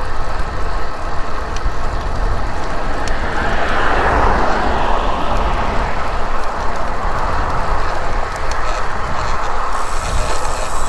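Wind buffeting a bike-mounted action-camera microphone, with road noise from riding on rough asphalt; a passing vehicle swells up and fades away about three to six seconds in.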